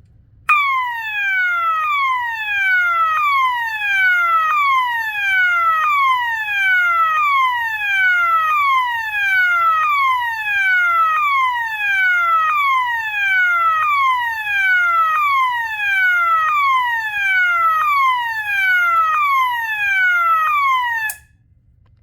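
System Sensor MASS2475ADA fire alarm sounder sounding a repeating falling sweep tone, one downward sweep about every 1.3 seconds. It starts suddenly and cuts off suddenly after about 20 seconds.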